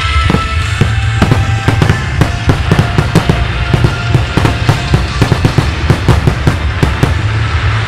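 A rapid-fire string of firework shells bursting, several sharp bangs a second, over loud background music.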